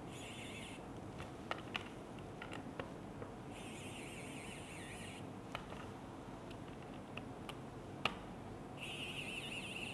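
Small electric screwdriver's motor and gearbox whirring faintly in three short bursts as it drives small screws, the pitch wavering under load, with light clicks between the bursts.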